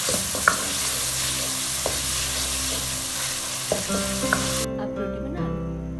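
Chicken in tomato masala sizzling as it fries in oil in a steel pot, stirred with a spoon that clicks and scrapes against the pot. The sizzling cuts off about three-quarters of the way through, and gentle acoustic guitar music takes over.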